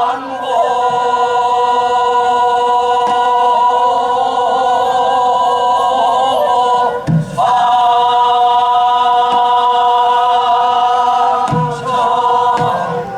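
A chorus singing sijo-chang, Korean classical sung poetry, in long held notes that waver slightly. The notes break briefly about seven seconds in and again near the end.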